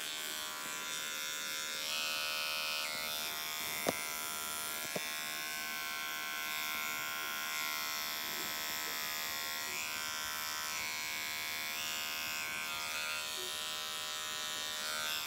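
Electric hair clippers with a number 3 guard buzzing steadily as they trim the neck hair, with two small clicks about four and five seconds in.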